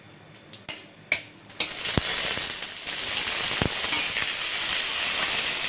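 A few sharp clicks, then about a second and a half in a loud, steady sizzle starts as raw green mango slices go into hot mustard oil with spluttering mustard seeds in a metal kadai, with a couple of knocks as pieces land in the pan.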